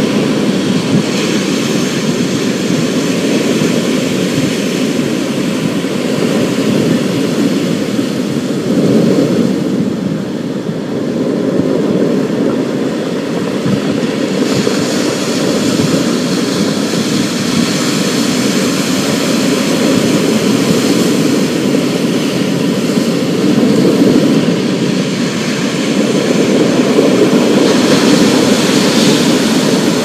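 Storm-at-sea sound effect: heavy waves and wind in a continuous loud roar that swells and eases. It dips about ten seconds in, then builds again with a stronger hiss, most of all near the end.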